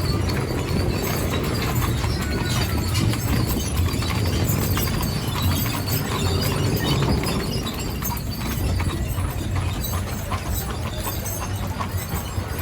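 Horses' hooves clip-clopping as a team pulls the Butterfield stagecoach, over a steady low rumble with many irregular sharp clicks and knocks from the moving coach.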